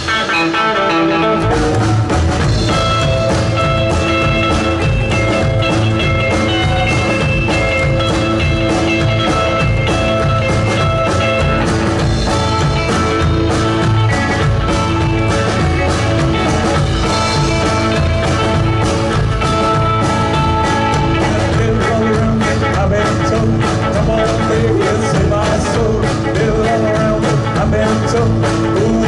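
Live blues-rock band playing an instrumental passage with guitar. Drums and bass come in about a second and a half in and keep a steady beat.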